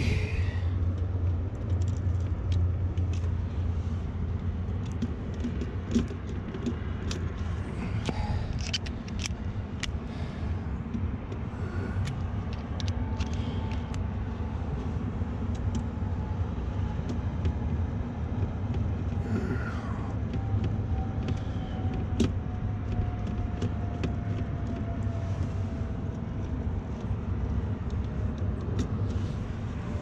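Steady low rumble, with scattered clicks and light knocks of a screwdriver and gloved hands working on wiring terminals in a rooftop HVAC unit's control panel. A faint tone slowly falls in pitch through the second half.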